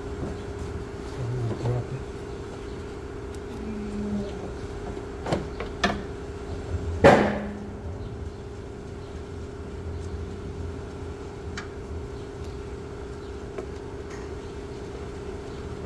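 Hands handling parts in a car's engine bay: a few knocks and clicks, the loudest a single sharp knock about seven seconds in, over a steady background hum.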